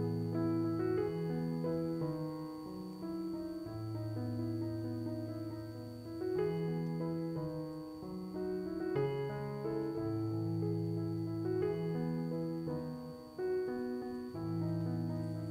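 Background piano music: a slow melody over long held bass notes.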